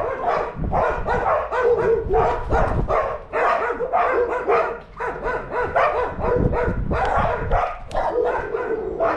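Dogs barking over and over, several barks a second, with a short break about five seconds in.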